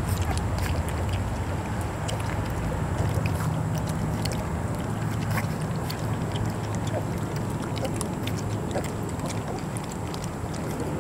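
Three-week-old Vizsla puppies lapping and smacking at soft puppy mush in a metal pan, many small wet clicks, over a steady low rumble.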